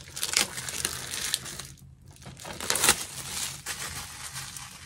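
Plastic shrink wrap from a DVD box set being crumpled and handled: irregular crinkling, with a loud stretch shortly after the start and another sharp burst about three seconds in, then quieter rustling.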